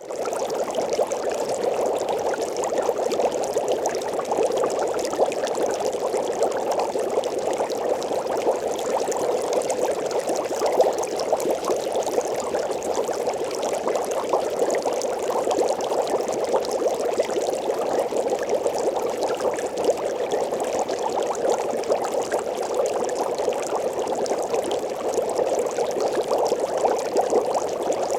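Water boiling steadily, a dense, even bubbling that starts abruptly.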